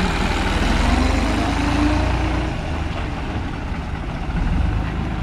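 New Holland 3630 tractor's three-cylinder diesel engine running as it pulls a loaded trolley away, a steady low engine beat that eases off a little partway through.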